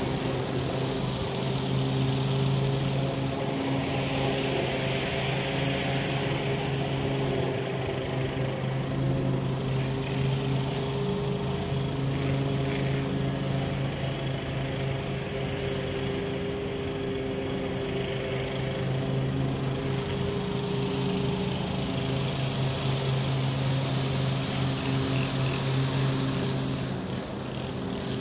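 Lawn mower's small petrol engine running at a steady speed while mowing.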